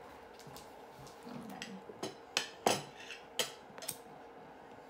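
A quick run of light clicks and taps, about six in two seconds, over a faint steady hum.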